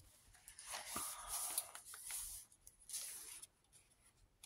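Paper and card pages of a handmade junk journal rustling and brushing as they are turned, with a light tap about a second in.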